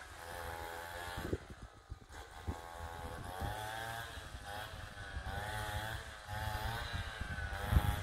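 Small petrol engine running, its pitch wavering and dipping again and again as it takes on and sheds load, with low thumps getting stronger near the end.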